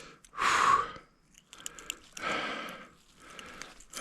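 A person breathing close to the microphone: a sharp breath out about half a second in, then a longer, softer breath around two seconds and a faint one near the end, with a few small clicks between.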